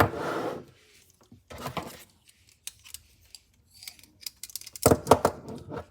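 Steel multitools being handled: a short scrape at the start, then scattered small metallic clicks and clacks, with a cluster of louder clicks near the end.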